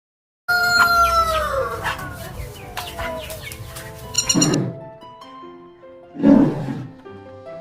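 Animal calls over light background music: a pitched call falling in pitch starts about half a second in, then two short harsh calls about two seconds apart.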